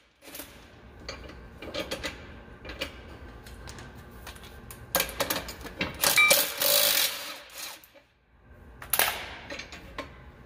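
Red cordless power tool running in two bursts to back out the bolts that hold a planter's closing wheel frame: a couple of seconds around the middle and a shorter run near the end. Light metal clicks and rattles from handling the parts come in between.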